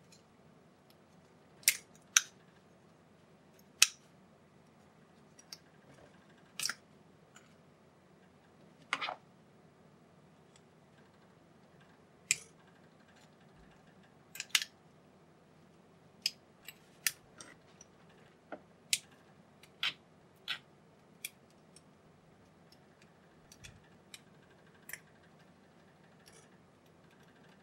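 Small flush cutters snipping excess plastic off a 3D-printed part: about twenty sharp snaps at irregular intervals, some much louder than others.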